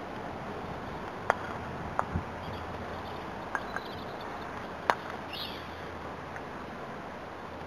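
Sharp clicks of croquet mallets striking balls, the loudest a little over a second in and about five seconds in, with a few fainter clicks between, over a steady outdoor hiss.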